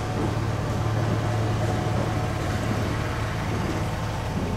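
A steady low mechanical hum with a continuous rumble, like an engine running.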